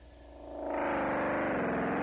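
Feedback oscillation from two cross-patched Radio Shack Realistic electronic reverbs (model 32-1110, really analog delay units), played raw without added effects: a synth-like droning tone rich in overtones that swells in over the first second, then holds, its pitch wavering slowly.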